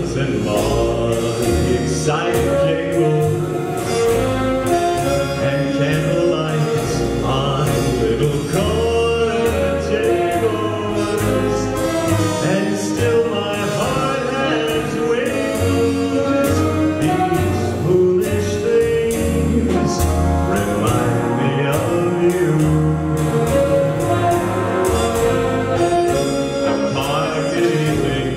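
Live big band music from saxophones, trombones, trumpets, guitar, upright bass and drums, with a male singer's voice over the band.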